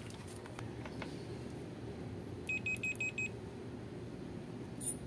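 Fluke digital multimeter's continuity beeper giving five short, evenly spaced high beeps in quick succession a little past midway, as the probes are put to the wires. A single faint click near the end.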